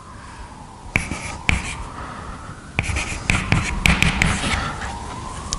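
Chalk writing on a blackboard: a scattered run of sharp taps and short scratches as the chalk strikes and drags across the board, starting about a second in.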